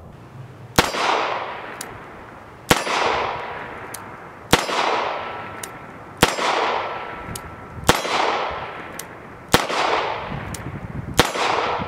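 Seven shots from a Smith & Wesson Model 351 PD AirLite .22 Magnum snub-nose revolver, fired at a steady pace about a second and a half to two seconds apart. Each sharp report trails off in echo.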